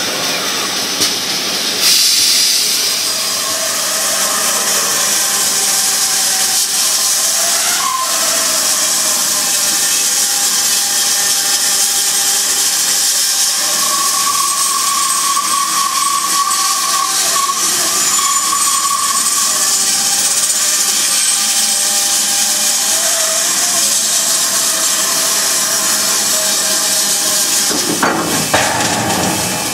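Band saw cutting through a metal casting that a robot holds against the blade: a steady, loud hiss with faint whining tones.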